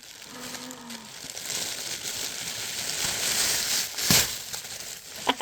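Packaging rustling and crinkling as an item is unwrapped and pulled from a parcel, with one sharp knock about four seconds in.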